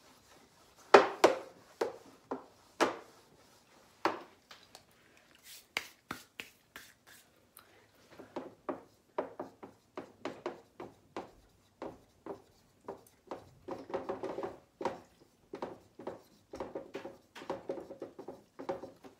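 Handwriting: short scratchy strokes and taps of a pen on a writing surface. A few sharp taps come in the first seconds, then a dense run of quick strokes from about eight seconds in.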